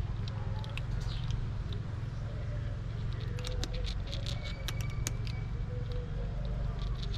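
Kittens eating dry cat food from a plastic plate: a patter of small crisp crunches and clicks, busiest about three to five seconds in, over a steady low background rumble.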